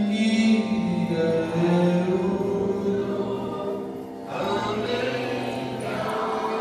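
Devotional Krishna bhajan sung by voices through a microphone, in long held notes, with a short break about four seconds in before the next phrase begins.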